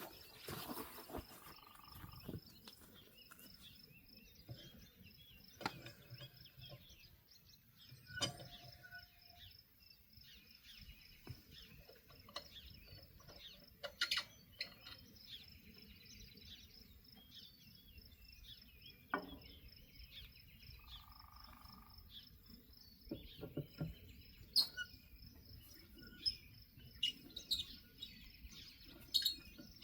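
Birds chirping over an insect's steady, evenly pulsed high trill, with scattered sharp clinks and knocks every few seconds.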